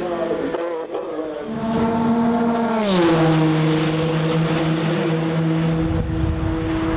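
Turbocharged race car passing at speed. Its engine note drops sharply in pitch about three seconds in as it goes by, then holds a lower steady tone. A low rumble takes over near the end.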